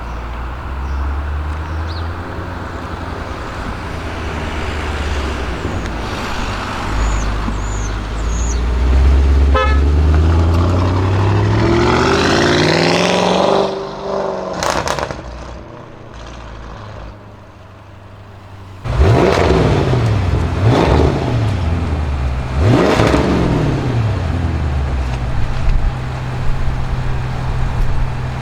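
Audi RS6 Avant C7's twin-turbo V8 through a Milltek exhaust, pulling hard with its pitch climbing, then cutting off with a few sharp crackles. After a quieter spell, it is revved loudly several times, pitch rising and falling, before settling back to a steady idle.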